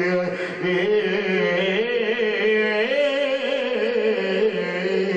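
A man chanting a line of verse in long, drawn-out melodic notes, amplified through a microphone, the pitch wavering up and down on each held note.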